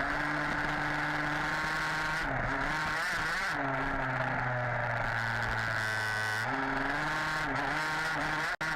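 Two-stroke petrol engine of a modified HPI Baja 5B 1/5-scale RC buggy running at high revs, its pitch dipping and climbing again several times as the throttle is eased off and reapplied. The sound cuts out for an instant near the end.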